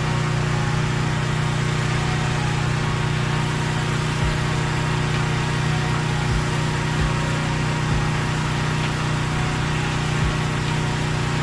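A pressure washer's engine running steadily, an even hum with no change in speed.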